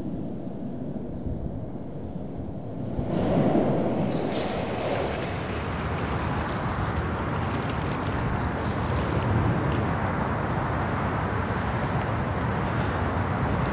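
Steady rushing outdoor noise, wind-like, that swells suddenly about three seconds in from a duller, quieter hum and then holds steady.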